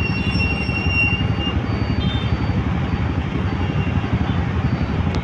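Busy street traffic with motorcycles idling and passing: a steady low engine rumble, with a faint high whine during the first second and a half.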